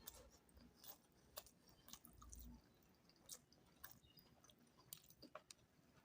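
Faint close-up chewing: a person eating goat-meat curry with potatoes, with irregular short wet clicks of mouth and lips.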